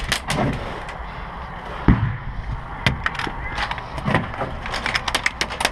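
Airsoft guns firing in short, rapid bursts of sharp cracks: several volleys in quick succession, with a couple of heavier thumps in between.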